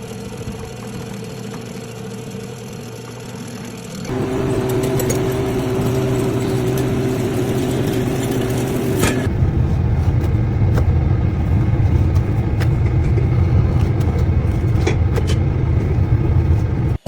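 A steady mechanical hum from a running engine or machine. It turns louder about four seconds in, and again about nine seconds in, when the low hum grows stronger.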